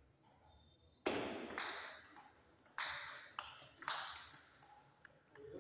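Table tennis ball being hit back and forth in a serve and short rally: several sharp pinging clicks of the ball on rubber bats and tabletop, each with a short ring, roughly half a second to a second apart, with the first strike coming about a second in.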